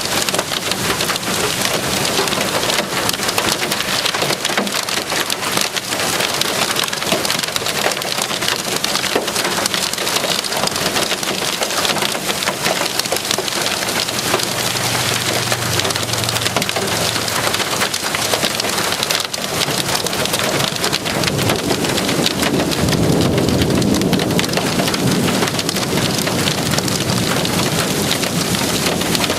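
Hail and heavy rain pelting a car's body and windows, heard from inside the car as a dense, continuous clatter of hits. A deeper rush swells about two-thirds of the way through.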